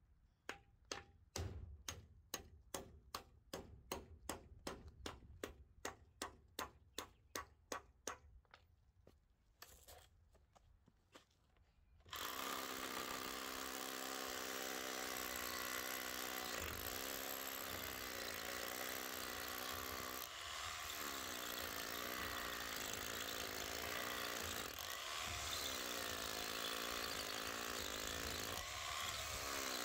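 A hand hammer tapping at the foot of a wooden post, about three sharp blows a second, stopping after about eight seconds. About twelve seconds in, a Bosch corded rotary hammer drill starts boring into very hard concrete and runs steadily on, its motor pitch wavering under load.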